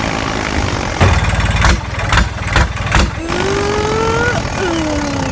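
Small motor of a DIY mini toy tractor running with a rattly buzz, with a few loud knocks between about one and three seconds in. Over it comes a pitched tone that rises, then a shorter one that falls near the end.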